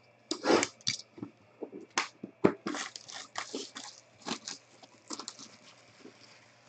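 Clear plastic shrink-wrap being torn off a sealed trading-card box and crumpled in the hand: an irregular run of crinkles and rips, loudest about half a second in and again about two and a half seconds in.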